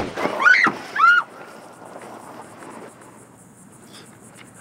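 A pistol shot with a blank cartridge right at the start, then two short high screams of a person in the first second or so, then crickets chirping steadily in the background.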